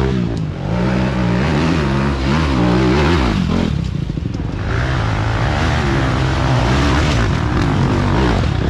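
Off-road dirt bike engines revving up and down under load as the riders climb the hill. The revs drop off briefly about three and a half seconds in, then rise again as the next bike comes up.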